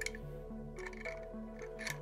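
Background music, a steady line of notes, with a few light clicks and rattles of the plastic mounting-plate bolts and washers being handled: one at the start, a short cluster about a second in, and another near the end.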